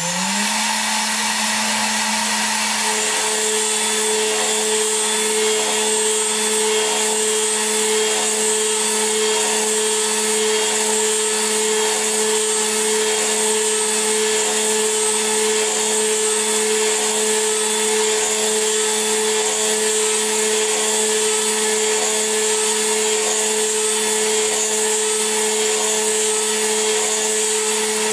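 Milling machine spindle at about 13,000 RPM: it winds up to speed in the first moment and then runs with a steady high whine. About three seconds in, a second, higher steady tone joins as the 3 mm HSS cutter engages the workpiece and cuts, lasting until near the end.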